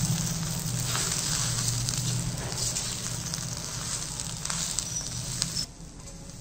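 Spiced potato stuffing frying in oil in an iron kadhai, a steady sizzling hiss with a metal slotted spoon scraping and stirring against the pan. The sound drops off sharply near the end.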